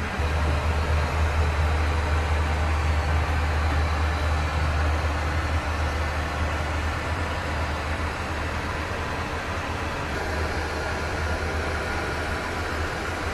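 Steady in-flight cabin noise of a Boeing 737-800 airliner heard inside its lavatory: a deep, constant rumble under an even rush of air, a little louder in the first five seconds.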